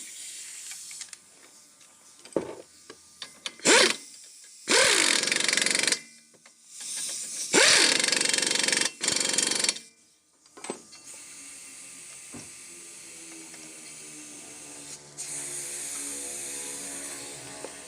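Power tool run in two loud bursts, about a second and two seconds long, while a car's front shock absorber is being changed, with a few sharp metal knocks before them. A fainter steady hum follows.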